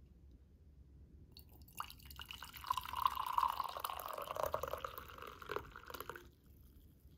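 Black coffee poured from a pot into a ceramic mug: a splashing stream of liquid that starts about a second and a half in and cuts off suddenly a little after six seconds.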